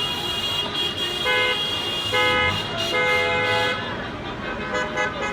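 Car horns honking in a run of blasts, some overlapping, the longest near the middle, over street noise: celebratory honking after a football win.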